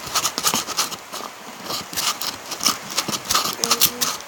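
A mixing utensil stirring and scraping a sticky glue-and-detergent mixture in a container, giving a quick, irregular run of clicks and scrapes.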